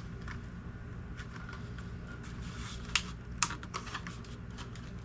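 Scattered light clicks and taps as parts of a spiral gumball machine are handled, with a few sharper clicks about three seconds in, over a steady low hum.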